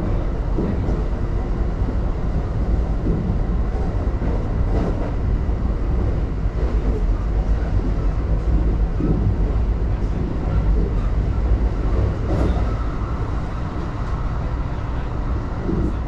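Electric commuter train running at speed, heard from inside the passenger car: a steady low rumble of wheels and running gear on the rails, with a few brief sharper rattles.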